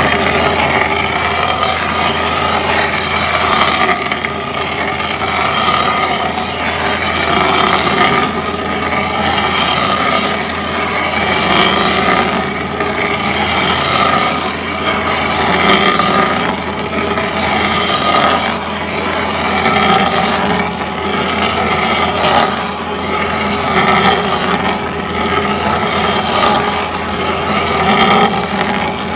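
Fecon stump grinder running under load, its engine and cutting noise loud and continuous, swelling and easing every couple of seconds.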